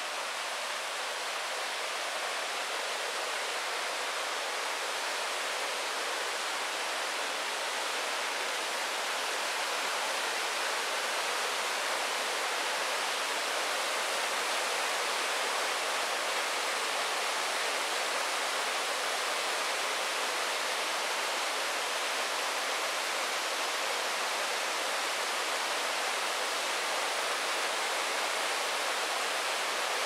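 Waterfall on a mountain river: a steady, even rush of falling water with no separate splashes. It grows a little louder over the first ten seconds or so, then holds steady.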